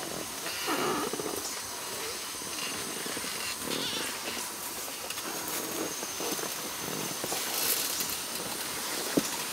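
Sumatran elephant moving through dense rainforest undergrowth, with low, purring rumbles now and then. Behind it runs a steady high drone of jungle insects.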